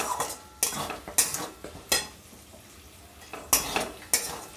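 A spatula scraping and knocking against a metal kadai while stirring ginger and giloy paste frying in ghee: strokes about half a second apart, a pause of about a second and a half in the middle, then two more strokes.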